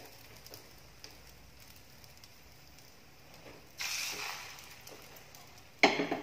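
Batter-soaked bread frying in shallow oil in a nonstick pan: a faint steady sizzle that swells to a louder hiss about four seconds in, as a second slice is laid into the oil, then fades. A sudden, louder sound comes near the end.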